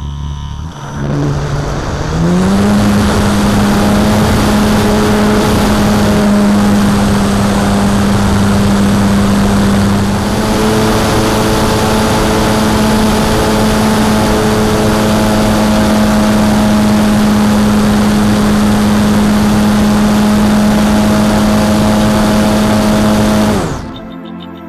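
Electric motor and propeller of a Multiplex Solius RC motor glider under power, picked up by a camera on the wing with rushing air: the motor spools up in the first two seconds to a steady whine with a low hum, runs on through the climb, and cuts off suddenly near the end as the motor is switched off for gliding.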